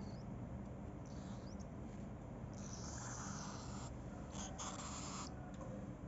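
Cockatiel chick making harsh, hissing calls: a couple of short ones, then two longer ones at about two and a half and four and a half seconds in, over a steady low hum.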